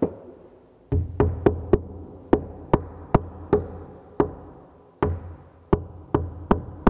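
Rubber mallet knocking a plastic wall plug into a drilled hole in the wall, driving it home: a run of sharp knocks, about two to three a second, starting about a second in.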